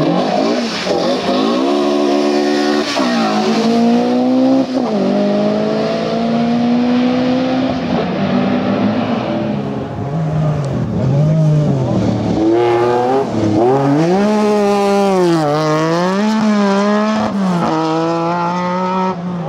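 Rally car engines running hard through the gears. The pitch climbs, then drops sharply at each gear change or lift, with a rapid run of rises and falls in the second half.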